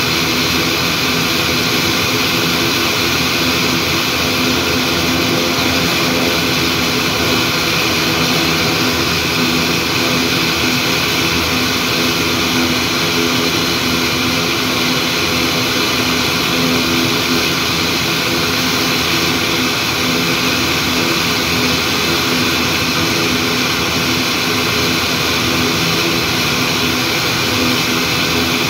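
ATR 42-500 turboprop engine (Pratt & Whitney PW127E) running steadily with its propeller turning while the aircraft stands still. It is a constant drone with several held tones under a broad rushing hiss.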